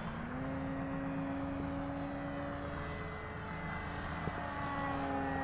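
Electric motor and propeller of an FMS PA-18 Super Cub RC plane in flight: a steady whine that steps up slightly in pitch shortly after the start as the throttle is advanced, then holds.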